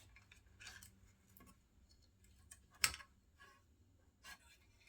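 Scattered light clicks and ticks of small parts and hand tools being handled while an old intercom is taken apart, with one sharper click about three seconds in.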